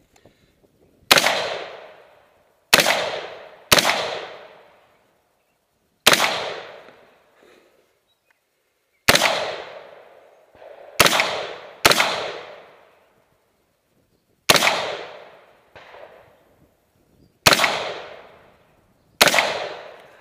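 Ten rifle shots fired one at a time through a shooting port at an irregular pace, about one to three seconds apart, sometimes in quick pairs. Each shot rings out and dies away over about a second.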